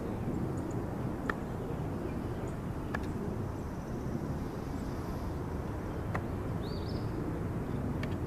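Steady low outdoor rumble, with a few faint clicks of checkers pieces being moved on the board, the last near the end, and a brief high chirp about two-thirds of the way through.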